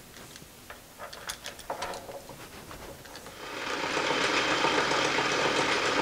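A few light metal clicks and clinks as a quick-change tool holder is set on the lathe's tool post. About three seconds in, a steady machining noise rises in and holds as the metal lathe faces the end of a spinning round bar.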